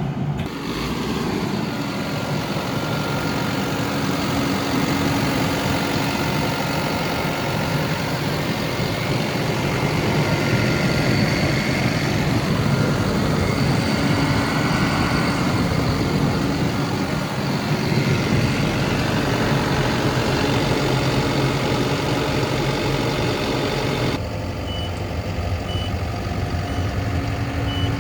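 Takeuchi TL12-V2 tracked skid steer's diesel engine running steadily under work. From near the end, a back-up alarm beeps repeatedly as the machine reverses.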